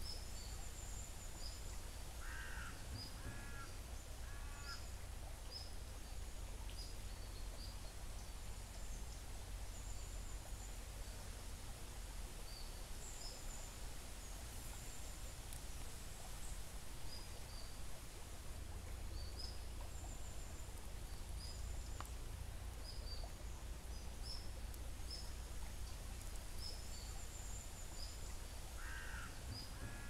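Shallow stream flowing gently over gravel, a soft steady wash, with small birds chirping high and often throughout. A harsher, lower bird call sounds three times about two to four seconds in, and again at the very end.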